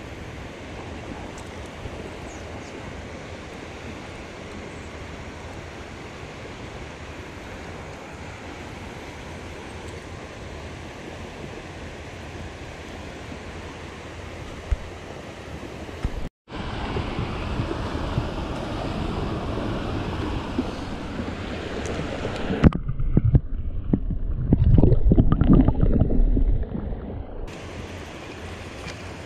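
Steady rush of river water pouring over a low dam. Partway through it cuts out for an instant and comes back louder, and near the end a low rumbling buffeting on the microphone covers it for a few seconds.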